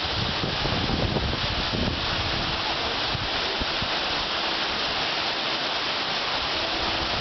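Waterfall, its falling water making a steady rushing hiss.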